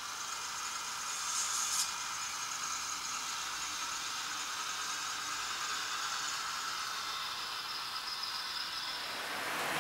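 Small model railway service vehicle running on its track: its small electric motor gives a steady whir and high whine, with a light rattle of wheels on the rails. A broader, louder rushing noise builds near the end.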